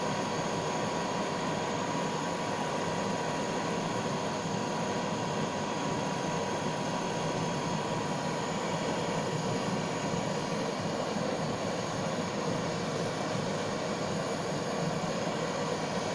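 Blowtorch flame heating solder in a crucible, a steady, unbroken hiss with a faint steady whine in it.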